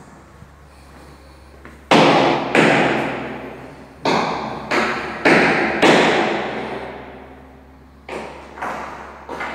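Sharp, loud knocks with a long ringing echo through bare, tiled, unfurnished rooms: two about two seconds in, a run of four evenly spaced about half a second apart from four seconds in, and three more near the end.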